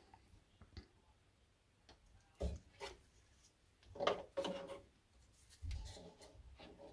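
Handling noise from clear plastic tubes being pulled off and pushed onto the fan assembly of a gas boiler: faint rubbing and scattered light knocks, loudest about four seconds in.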